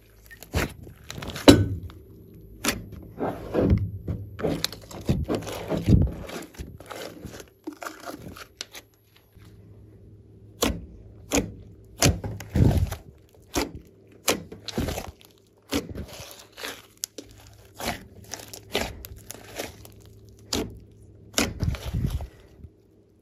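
Glossy slime being kneaded, squeezed, poked and stretched by hand: irregular wet clicks and pops as trapped air escapes, with a few heavier thuds, about a second and a half in, near six seconds, around twelve and a half seconds and near the end.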